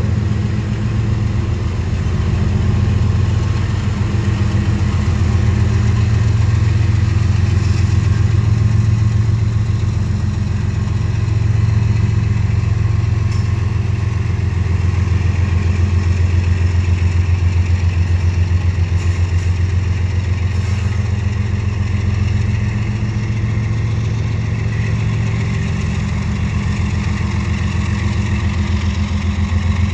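Diesel locomotives of a freight train, a Canadian Pacific unit and an EMD F59PH, running with a steady low engine drone and a fast pulsing beat as the train backs slowly past.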